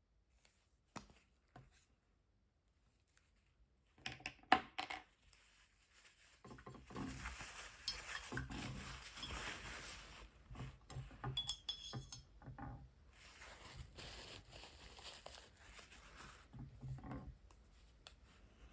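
Plastic marker barrels and caps clicking and clinking together on a desk as water-based markers are picked up and handled. There are a few single clicks at first, a quick cluster of knocks about four seconds in, then a long stretch of scratchy rustling with small clinks.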